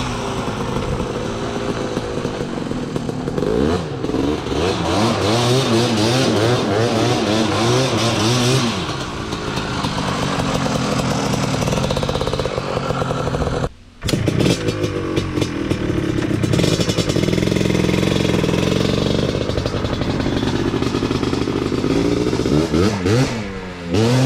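1987 Kawasaki Tecate 4's 250 cc two-stroke single-cylinder engine being warmed up, revving up and down repeatedly, then running more steadily. After a brief break about 14 seconds in, a two-stroke quad engine runs on and revs sharply several times near the end.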